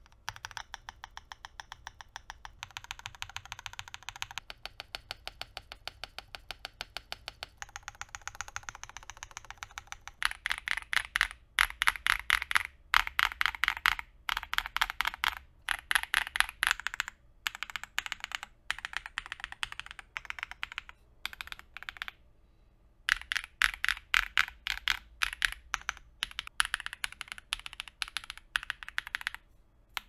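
Typing sound test on a QK100 full-size mechanical keyboard with QK1 switches, an FR4 plate and all foams fitted. For about the first ten seconds there is a fast, even run of softer key presses, then louder bursts of typing with short pauses between them.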